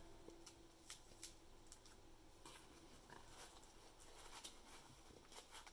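Faint scattered clicks and light rustles of hands handling folded over-ear headphones in their hard carrying case, with near silence between them.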